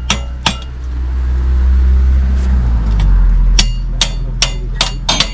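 A motor or engine runs steadily with a deep hum that shifts lower about three seconds in, while short sharp metal knocks or clicks come in a loose rhythm, a couple a second near the end, as the chimney's steel fixings are worked on.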